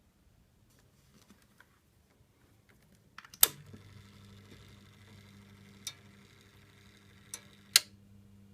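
A 1993 Mitsubishi EX-20EX2 ventilation fan switched on with a sharp click, its motor then running with a steady low hum. A few more sharp clicks come later, the last two close together near the end.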